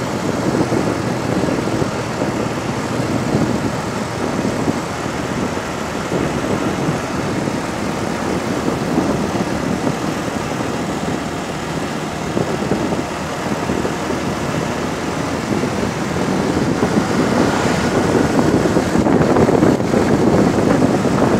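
Strong wind buffeting the microphone of a moving vehicle: a dense, rushing noise that grows louder about three-quarters of the way in.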